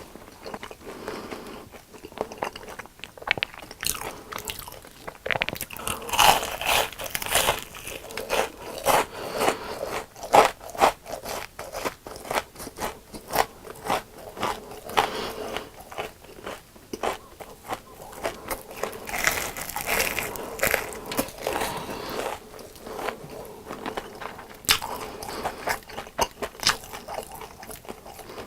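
Close-miked eating of crunchy fried food: repeated crisp bites and crunchy chewing, irregular and continuous, with no talking.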